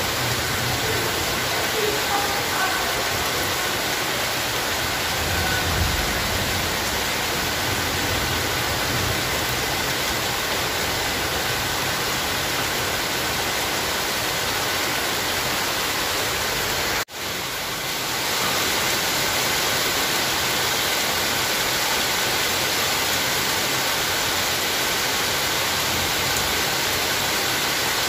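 Steady heavy rain, an even hiss of falling water. About two-thirds of the way through it cuts out for an instant and swells back within a second.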